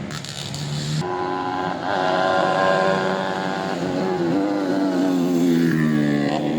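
Tuned 125 cc four-stroke underbone racing motorcycle engines running hard at high revs. A strong, steady engine note takes over about a second in, and its pitch eases down somewhat in the second half.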